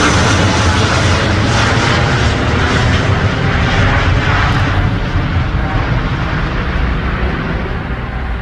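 Jet airliner engines at takeoff power, a loud steady roar with deep rumble. In the second half the roar slowly fades and loses its higher tones.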